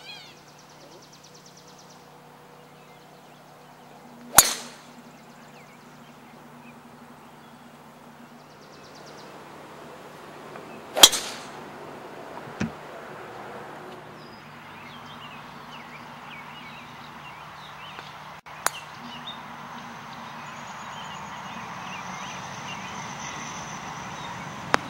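Golf driver striking a ball off the tee: two sharp clicks about seven seconds apart, the second the louder, with a fainter click later on.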